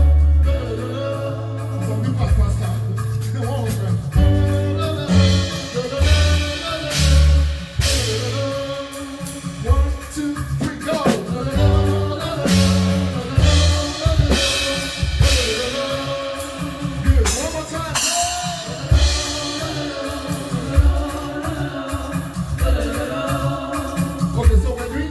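Live band playing a song: singing over a drum kit with several cymbal crashes and a bass line stepping between notes.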